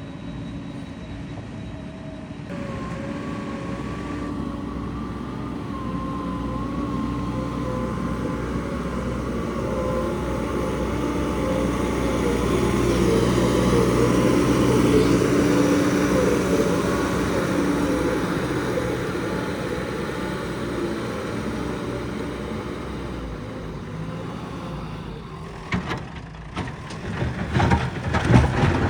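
Heavy construction vehicle engine running under load, with a wavering whine over it. It grows louder toward the middle and then eases off. Near the end come a series of loud clanks.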